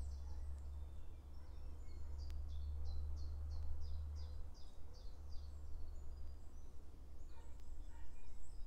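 Common chiffchaff singing, a run of about eight quick high notes at roughly three a second, with other birds calling faintly and a steady low rumble underneath.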